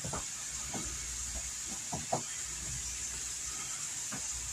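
Soft handling sounds of cooked manicotti shells being picked up and stuffed with grated cheese by hand: a few scattered small taps and clicks, the clearest about two seconds in. Under them runs a steady hiss.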